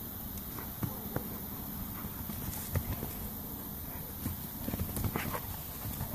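Two dogs, a Belgian Malinois and a large black dog in a wire basket muzzle, play-fighting on bare dirt: irregular scuffles and knocks of paws and bodies, coming thicker from about four seconds in.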